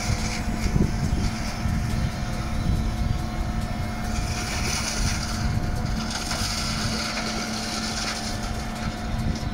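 Mechanical grape-vine pruning machine running with a steady engine drone and hum, with a hiss that swells up for a few seconds in the middle.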